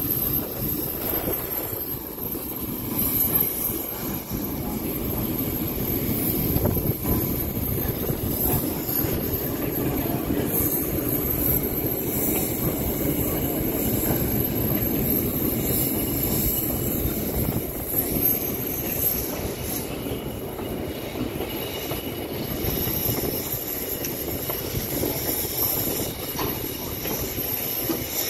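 British Rail Class 08 diesel shunter running slowly past with its English Electric diesel engine rumbling, hauling a rake of goods vans whose wheels run over the rails. A steady, continuous rumble with no break.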